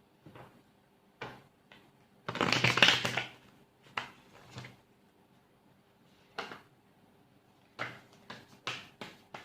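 Tarot cards being shuffled by hand: scattered soft flicks and taps, one louder rustling burst lasting about a second a little over two seconds in, and a quicker run of card flicks near the end.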